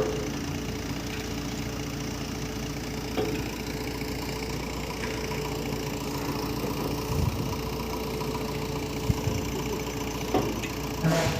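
Heavy machine's engine running at a steady idle, with a few short, sharp knocks scattered through.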